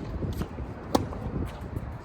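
Tennis ball impacts during a rally: sharp pops of the ball struck by rackets and bouncing on the court, the loudest about a second in. Under them is a low rumble of wind on the microphone.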